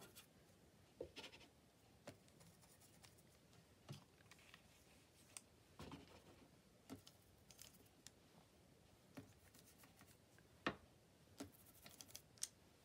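Near silence broken by faint, irregular taps and crinkles, about one a second with a sharper tap near the end: a small ink applicator dabbed onto crumpled cash register paper and onto an ink pad.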